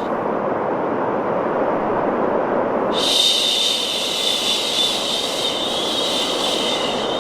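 Steady white noise, joined about three seconds in by a long, continuous "shhh" shushing sound from a woman's voice.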